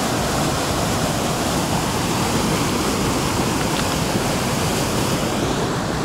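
Small waterfall on a forest stream: falling water rushing in a loud, steady hiss.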